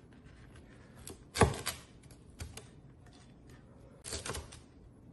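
Meat cleaver chopping through pieces of deep-fried pork belly onto a wooden cutting board: a few separate chops with pauses between, the loudest about a second and a half in and a short cluster near the end.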